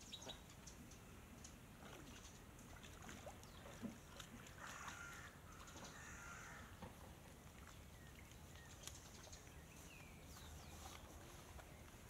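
Near silence: faint outdoor ambience with a few faint bird chirps and light scattered clicks.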